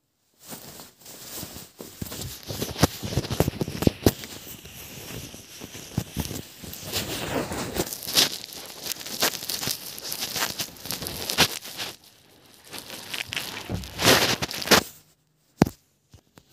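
Plastic clicking and rattling of a triangular Rubik's puzzle (Pyraminx) being turned rapidly by hand. The turning stops about 15 s in, followed by a couple of single clicks.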